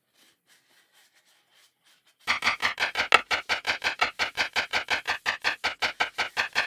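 A rapid, even run of clicks, about eight a second, starting about two seconds in after a few faint ticks.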